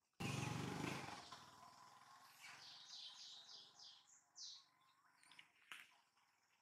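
A sudden loud, low-pitched sound fades away over about two seconds, followed by small birds chirping and a single sharp click near the end.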